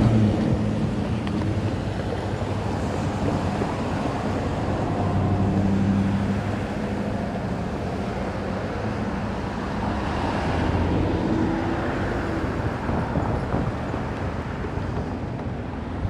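Diesel locomotive engine running with a low rumbling drone that swells and fades, loudest about a third of the way in and again past the middle.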